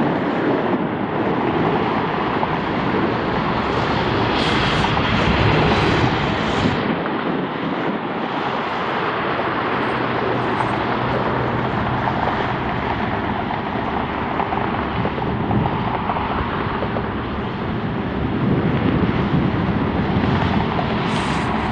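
Qantas Airbus A380's four Rolls-Royce Trent 900 turbofans running steadily at taxi power as the jet rolls along the taxiway, a continuous jet noise with a faint steady hum.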